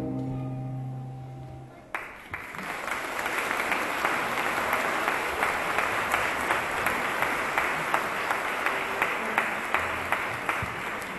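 The last held chord of a choir and band carol dying away, then an audience applauding for about nine seconds, the clapping thinning out near the end.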